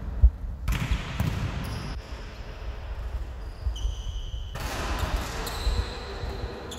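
Volleyballs being hit and bouncing on a sports hall floor: a string of irregular thuds, the sharpest about a quarter second in.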